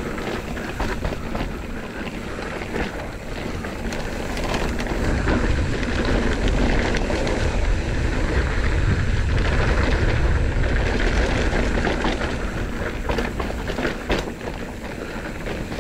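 Commencal Meta AM enduro mountain bike descending a dirt trail at speed: tyres running over rough ground with the bike rattling over bumps, and wind rushing over the microphone, strongest from about five to twelve seconds in.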